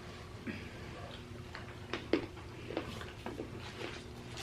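Scattered light clicks and taps, the loudest about two seconds in, from snack packaging and a chocolate bar being handled.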